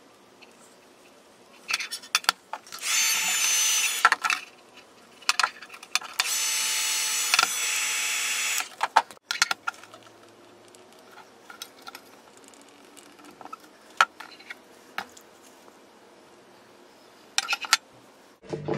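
Small handheld power tool running in two bursts, about a second long and then about two and a half seconds long, with a steady motor whine. Scattered clicks and knocks of tools and the metal case being handled.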